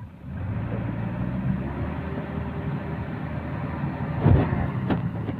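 Diesel engines of a JCB 3DX backhoe loader and a Sonalika tractor running under load as the loader pushes the mud-stuck, soil-loaded tractor trolley. The engine noise swells about half a second in, and two sudden louder bursts come near the end.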